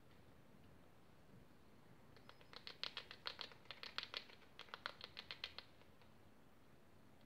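Degus gnawing and crunching dry food: a quick run of crisp, rapid crunches in several clusters, starting about two seconds in and stopping about three and a half seconds later.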